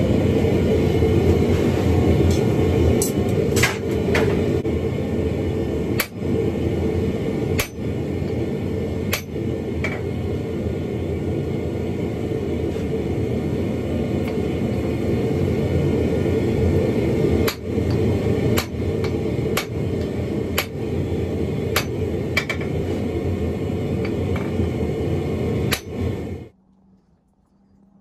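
Hand-hammer blows on hot wrought iron at an anvil: sharp strikes at irregular spacing, some in quick runs, over the steady noise of the forge running. The steady noise cuts off suddenly near the end.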